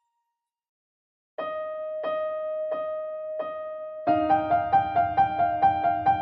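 Electric piano music: after about a second of silence, a single note struck about every 0.7 s, then around four seconds in a quick repeating figure of higher notes over a low sustained note.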